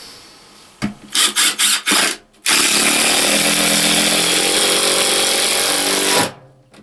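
Cordless drill driving a screw down through plywood platform boards into the floor: a few short trigger bursts to start the screw, then one long steady run of about four seconds that stops near the end.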